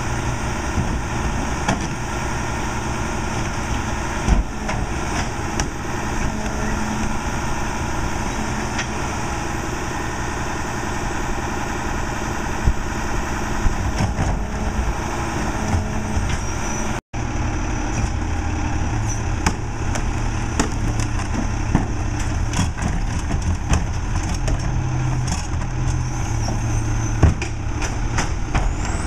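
Crane Carrier garbage truck's diesel engine idling steadily, with a few short knocks and clunks as carts are tipped into the Leach rear-load hopper. After a break about two-thirds of the way through, the engine's low drone is louder.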